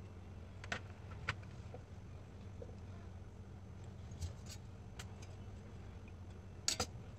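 A few light clicks and clinks of kitchen dishes and a stainless steel steamer plate being handled around a pan, over a low steady hum.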